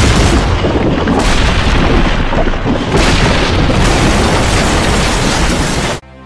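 Cartoon explosion sound effect: a loud, continuous blast with a building collapsing into dust. It stops abruptly about six seconds in.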